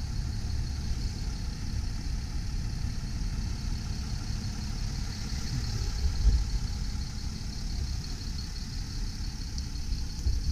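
Steady low rumble of an idling vehicle engine, with a brief louder thump about six seconds in.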